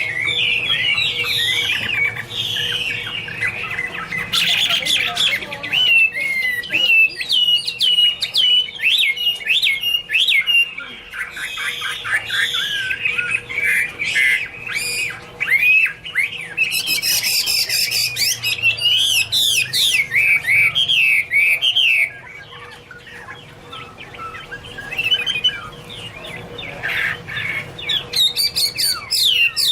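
Chinese hwamei (Garrulax canorus) singing a long, varied song of rapid whistled phrases with some harsher notes mixed in. The song breaks off for a few seconds past the middle, then resumes.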